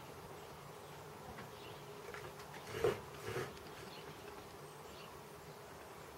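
Steady low hum with two brief, sharp scraping sounds about three seconds in: a chip-carving knife cutting into the wood.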